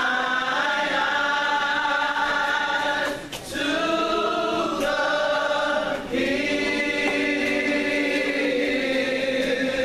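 Gospel vocal group singing in harmony, holding long sustained chords in three phrases, with short breaks about three seconds in and again about six seconds in.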